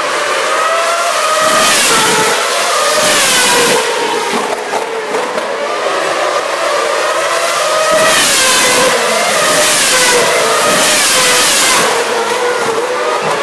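Formula One cars racing past close to the trackside fence, their engine notes rising and falling in pitch through the gears. Cars go by loudest twice, about one and a half seconds in and again from about eight to twelve seconds in, with engines elsewhere on the circuit heard in between.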